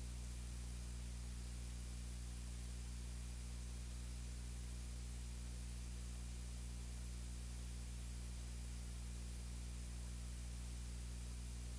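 Steady electrical hum with a set of low tones and a constant hiss on top, unchanging throughout, with no voice heard.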